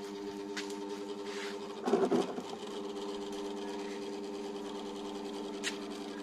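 Electric stand fan's motor humming steadily, with a short clattering knock about two seconds in and a few faint crackles from the burning twigs.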